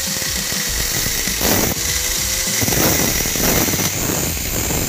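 Angle grinder with an abrasive cut-off disc cutting through a steel bar. The motor's whine sags slightly as the disc bites, and a harsh, rough grinding noise builds from about a second and a half in.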